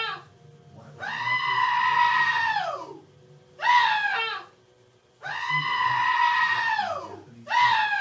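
Sound effect from GarageBand played over the computer's speakers: a loud, cry-like call that repeats in pairs, a short call and then a held one about two seconds long, each falling in pitch as it ends, coming round about every four seconds.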